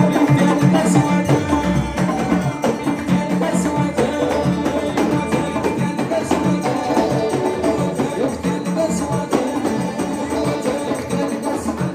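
Live Amazigh folk music: banjo and electric guitar playing a tune over frame drums and hand drums in a steady, driving rhythm.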